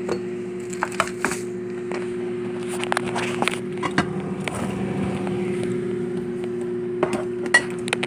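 Scattered knocks and light clinks from the old Quasar microwave oven being shifted and handled to reach its back panel, over a steady hum.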